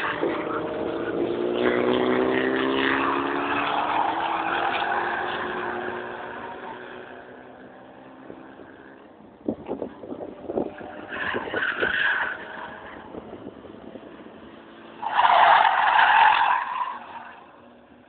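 Race cars' engines running hard on a circuit, the engine note falling and fading as they pull away, then tyres squealing through a corner in bursts, the loudest near the end.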